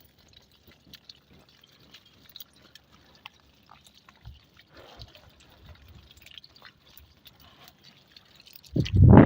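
Faint water dripping, with scattered small drips and splashes. About a second before the end, a loud rushing noise starts suddenly.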